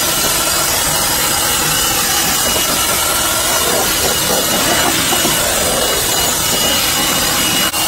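Cordless 18-volt blower running at full power with a steady, loud rush of air, blowing dust out of an HVAC unit's electrical and burner compartments. It dips briefly just before the end.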